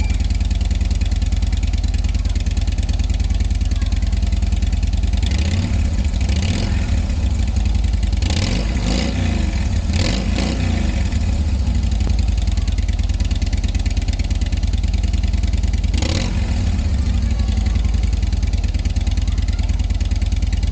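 A 2008 Harley-Davidson Fat Boy's air-cooled V-twin running through its factory stock exhaust: idling, with the throttle blipped several times in the middle and once more later, the pitch rising and falling back each time.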